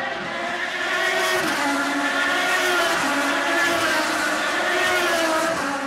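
IndyCar race cars' engines running hard on the street circuit, several at once. The pitch drops in steps and climbs again, and the sound swells from about a second in and eases off near the end.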